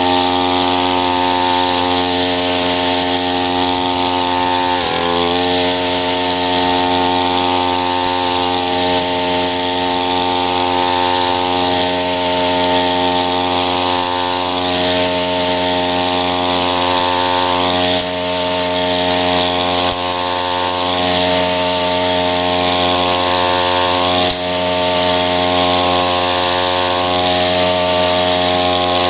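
Tabata 32 cc two-stroke backpack brush cutter running steadily at high speed as its eight-line nylon head cuts tall grass. About five seconds in, the engine speed dips briefly and picks up again.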